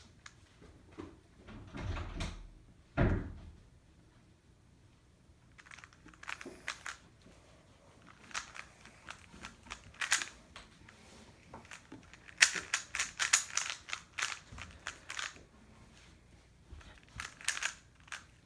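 Plastic speed cube being turned, a run of quick clicking layer turns that grows densest about twelve to fifteen seconds in, with a couple of duller thumps near the start.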